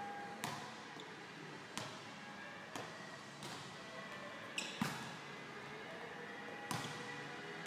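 Volleyballs being hit and bouncing on a sport-court floor: about half a dozen sharp slaps spread over the few seconds, the loudest about five seconds in, echoing in a large gym hall.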